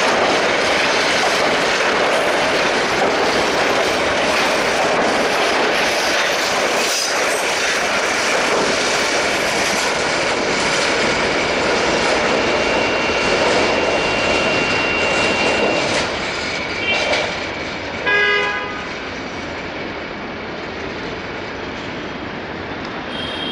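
Passenger train coaches rolling past at speed: a loud, steady rush and clatter of steel wheels on rail that falls away about two-thirds of the way through as the last coach draws off. Near the end a brief pitched blast sounds, like a horn.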